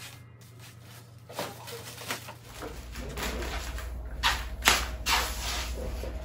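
Plastic mailer packages crinkling and rustling as they are handled and set down, in short bursts that grow louder and more frequent toward the end.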